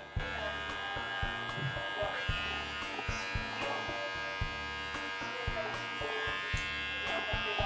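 Small electric pet trimmer buzzing steadily while it is run over a kitten's paw.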